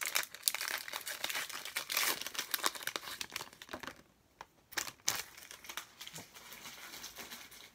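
A foil Pokémon booster pack wrapper crinkling and tearing as it is opened by hand. It is loudest in the first four seconds, then goes over to quieter rustling as the cards are pulled out and handled.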